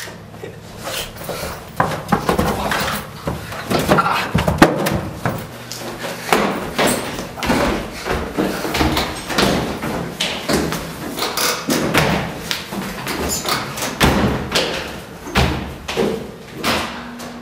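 Hurried footsteps on stairs with a dense, irregular run of knocks and thumps, over a low steady hum.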